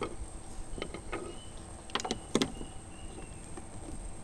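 A few sharp knocks and clicks on a wooden boat, the loudest about two and a half seconds in, over a low rumble of wind and water, with faint high whistles in the middle.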